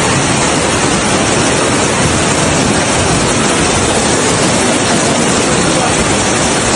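Steady, loud rushing of heavy rain and floodwater.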